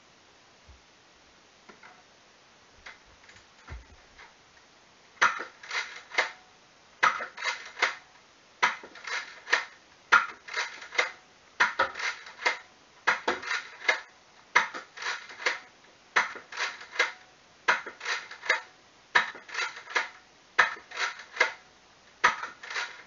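Nerf foam-dart blaster being cocked and fired over and over: quick clusters of sharp plastic clacks about every second and a half, starting about five seconds in, after a few faint knocks.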